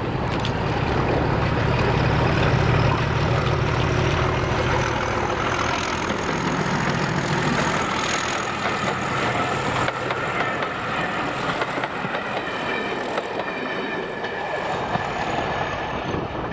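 Heritage diesel locomotive working hard as it approaches and passes, its engine drone loudest in the first few seconds. Then the coaches roll by with wheels clattering over the rail joints and a thin high whine above them, fading as the train draws away.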